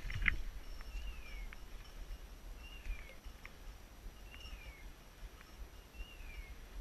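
A hunting dog's beeper collar sounding a short falling electronic chirp four times, evenly spaced about every 1.7 seconds. A couple of sharp brushing knocks at the very start.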